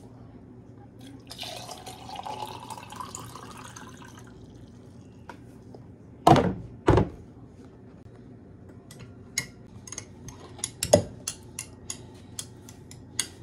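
Water poured from a plastic pitcher into a glass pitcher of fruit, its pitch rising slightly as it fills. Then two loud knocks about six seconds in, and a long spoon stirring and clinking against the glass pitcher, with another knock near the end.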